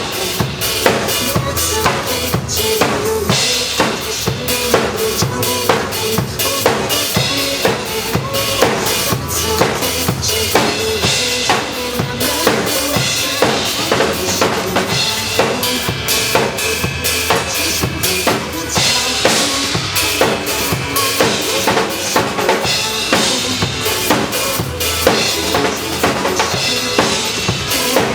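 Drum kit played live in a steady, busy groove, with bass drum, snare and cymbals struck many times a second.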